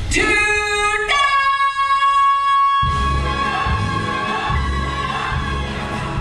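Singing and orchestra from a stage musical number, climbing to a long, high held note. About three seconds in, the orchestra's low end comes in under it.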